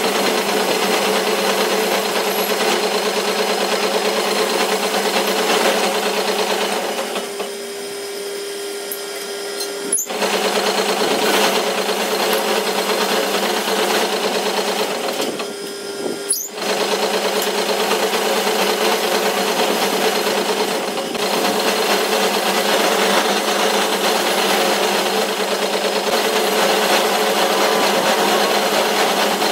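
Metal lathe running and turning down the steel end of a tractor-trolley axle tube: a steady machine hum with a cutting noise over it. Twice the sound drops for a couple of seconds, and each drop ends in a sharp click.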